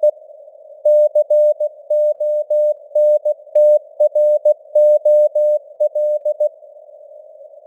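Computer-generated Morse code (CW) tone at 16 words per minute, a single steady pitch keyed in dots and dashes, over a hiss of simulated radio band noise. The keying starts about a second in and stops with a word gap near the end, leaving only the noise.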